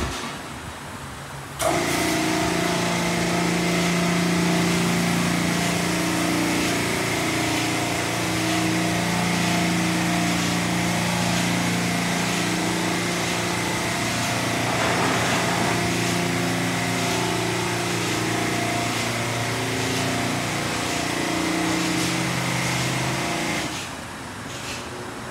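PDQ original onboard car-wash dryer blowers switch on suddenly about two seconds in. They run steadily, a loud rush of air with a steady hum and a high whine, and shut off near the end.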